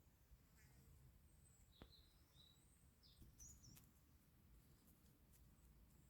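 Near silence, with faint bird chirps a few times and one faint click about two seconds in.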